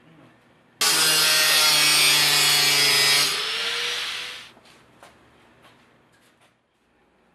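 Loud, harsh rasping noise of a tool working material, starting abruptly about a second in, holding steady for about two and a half seconds, then fading out over about a second.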